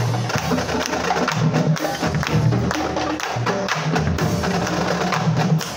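Marching drumline playing a cadence: a dense run of drum strokes with low held tones underneath.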